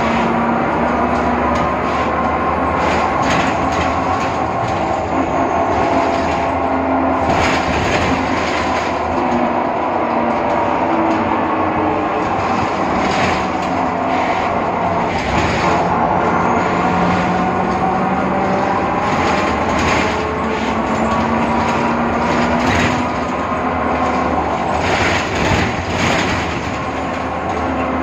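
Inside a moving BredaMenariniBus Avancity Plus city bus: a whine from the differential that slowly rises and falls in pitch with road speed, over the bus's running rumble and frequent short knocks and rattles. The uploader puts this strange sound down to a faulty differential.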